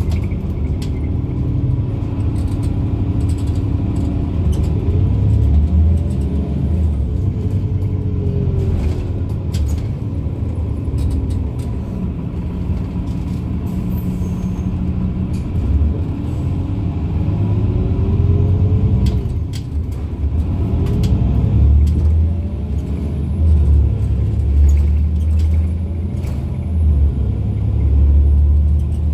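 Irisbus Citelis Line city bus heard from on board: its diesel engine and Voith automatic gearbox running under way, with the pitch rising and falling several times as the bus speeds up and shifts, over a steady low rumble and light interior rattles.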